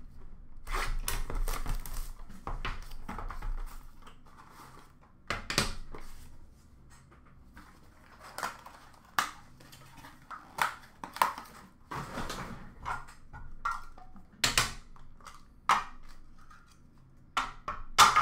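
Trading cards and hard clear plastic card cases being handled on a counter: scattered sharp plastic clicks and knocks, with a stretch of rustling in the first few seconds.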